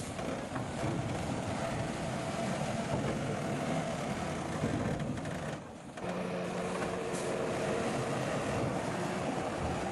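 Heavy diesel earthmoving machinery running steadily. The sound dips briefly a little over halfway through, and after that a steady engine hum is clearer.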